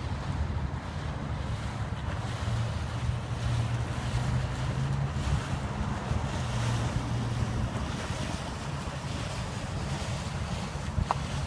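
Wind rumbling steadily on the microphone beside the river, with a single short click near the end.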